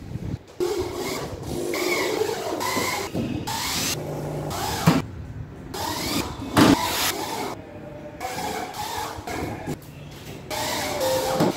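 Corded electric drill-driver driving screws to fix corner bead along the edges of gypsum board, in short runs of motor whine broken by abrupt gaps, with sharp knocks about halfway through and again a couple of seconds later.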